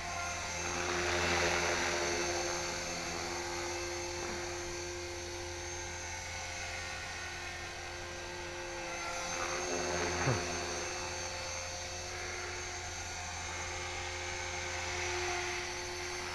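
HK-450GT electric RC helicopter in flight: the steady high whine of its electric motor and spinning rotor, swelling and fading as it moves about. A brief sharp noise about ten seconds in.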